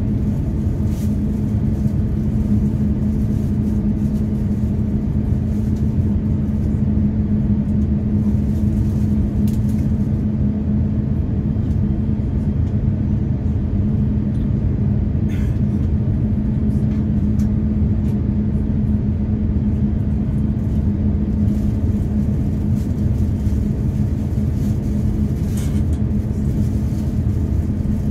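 Airbus A350-1000's Rolls-Royce Trent XWB-97 engines at low taxi thrust, heard inside the cabin: a steady low rumble with a constant hum. A couple of faint ticks stand out about midway and near the end.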